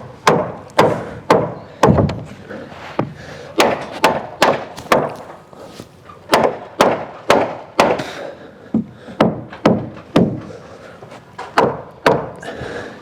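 Framing hammer driving nails into timber studs, sharp blows about two a second with a few short pauses.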